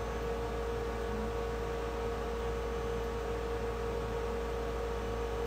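Steady electrical hum: a constant mid-pitched tone with fainter steady overtones over a light hiss.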